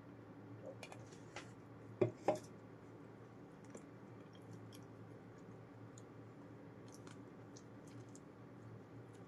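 Close-up mouth sounds of someone eating: soft chewing with many small wet clicks, and two louder sharp sounds about two seconds in, over a faint steady hum.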